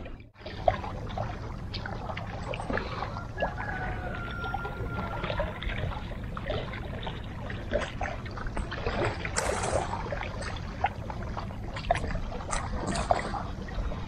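Small sea waves lapping against shoreline rocks, a steady wash full of small splashes and trickles.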